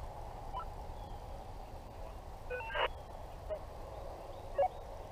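A pack of hunting hounds baying in the distance as they run a deer's trail, with a few louder single calls about half a second in, near the middle, and near the end, over a low wind rumble.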